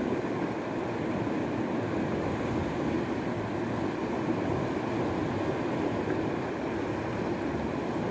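Steady rushing noise of wind buffeting the microphone.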